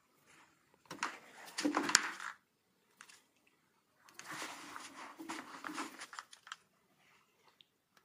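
A modelling tool scraping and rubbing on the leather-hard clay of a sculpted bird's head in two bursts, the first about a second in with a sharp click near its end, the second from about four seconds to six and a half.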